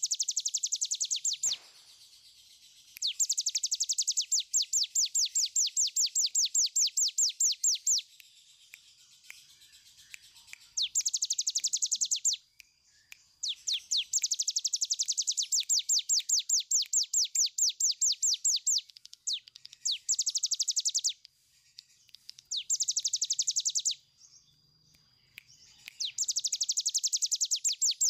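Cigun (ciblek gunung, a prinia) singing its long, rapid 'ngebren' trill. The song is strings of sharp downward-sweeping notes at about five a second, in runs of up to several seconds broken by short pauses.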